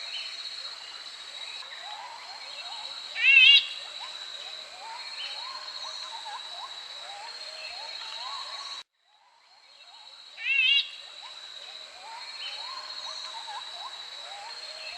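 Gray-eyed bulbul calling: two short, loud, wavering calls about seven seconds apart, over a steady high background tone and many faint chirps. The recording cuts out briefly between the two calls.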